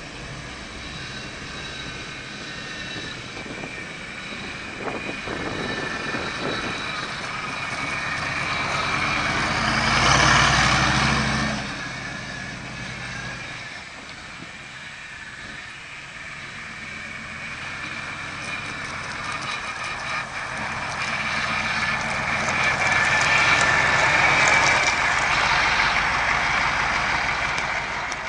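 International Scout II with a GM 6.5-litre turbo diesel driving past, getting louder to a peak about ten seconds in, easing off, then building to a second peak around twenty-four seconds before fading.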